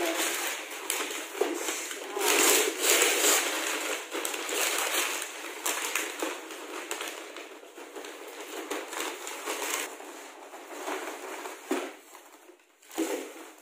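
Gift wrapping paper and foil crinkling, rustling and tearing as a gift box is unwrapped and opened, in quick irregular crackles. It dies down briefly near the end.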